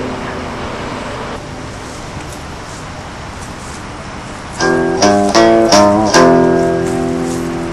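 Background music: a held chord fades slowly, then about four and a half seconds in come five quick, sharply struck chords, the last left ringing.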